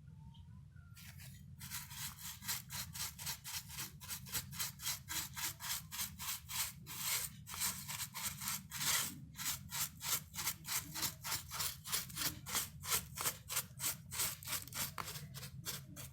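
Rapid back-and-forth scrubbing of keyboard parts during cleaning, about three to four even strokes a second, starting about a second and a half in, over a low steady hum.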